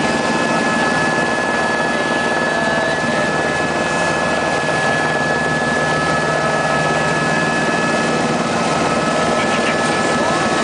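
Helicopter running, heard from inside the cabin: a loud, steady hum with a high, steady whine over it.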